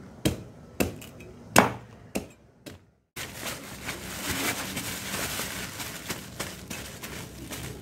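A large knife chopping the spiky rind off a young jackfruit: a handful of sharp chops about half a second apart, the loudest about a second and a half in. After a brief drop-out the chopping gives way to a continuous crinkling rustle of a plastic bag being handled.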